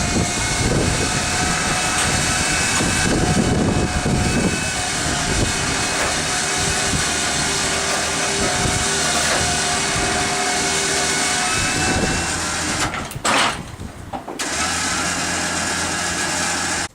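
A motor running steadily with a faint whine over the noise, dropping away briefly about 13 seconds in before it picks up again.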